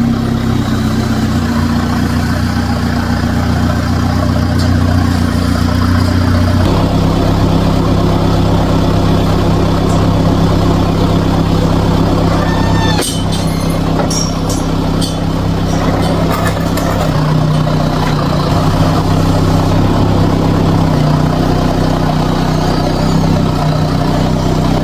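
A vehicle engine running steadily, its pitch shifting up and down a few times as the revs change, with a few sharp clicks about halfway through.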